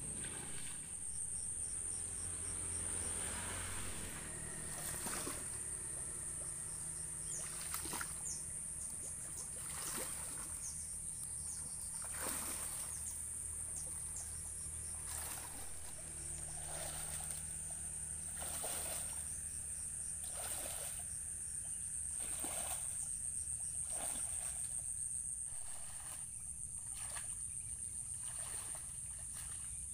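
Water splashing and swishing irregularly, every second or two, as a person wades through thigh-deep canal water, over a steady high-pitched drone of insects.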